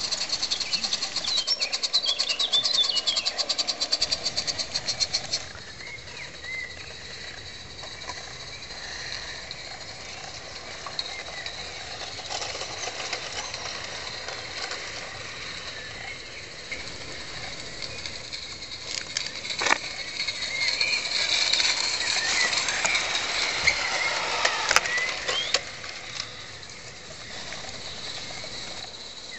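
Gauge IIm live-steam garden railway locomotive running, with a fast, even beat that stops after about five seconds. Birds chirp throughout, and there are a few sharp clicks later on.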